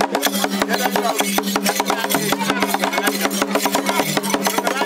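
Background music: fast, evenly ticking percussion over a held low note.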